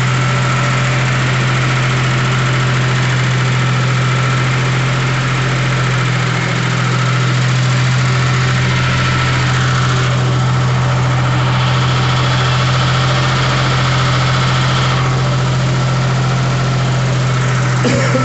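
Car-engine generator set running at a steady speed with no load on it, a constant engine note that holds throughout.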